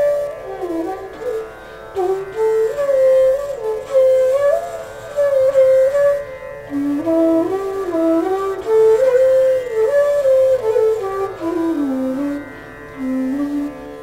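Bansuri (Indian bamboo flute, D-base) playing Raag Megh Malhar: a melodic line that glides between held notes, over a steady drone. The melody dips to lower notes near the end.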